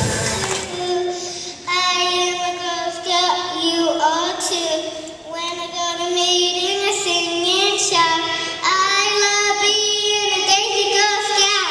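A young girl singing solo into a handheld microphone, in phrases with long held notes.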